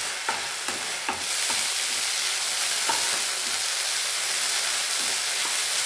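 Vegetables and sauce sizzling in a kadai on high flame as they are stir-fried, with a spatula scraping against the pan now and then. The sizzle grows louder about a second in.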